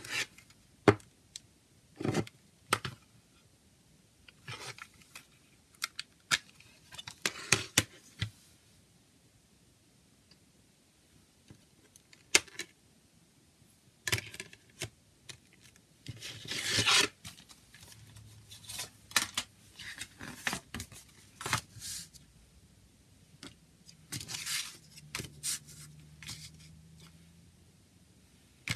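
Plastic CD jewel case handled and snapped open with sharp clicks and taps, then the paper booklet is slid out and unfolded with rustling. The sounds come in separate bursts, with a quiet stretch of a few seconds in the middle.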